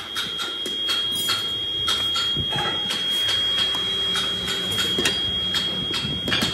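Hands scooping and packing black foundry molding sand into a steel molding box, with irregular scraping and knocks. A steady high-pitched whine runs underneath.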